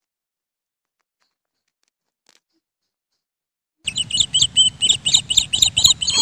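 Near silence for nearly four seconds, then a rat squeaking: a quick run of high, chirping squeaks, about five a second, with a low rustle underneath.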